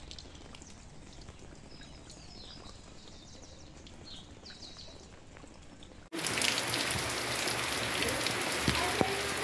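Rain falling, with a few short bird chirps over a soft hiss. About six seconds in it cuts suddenly to heavy rain: a much louder, steady hiss.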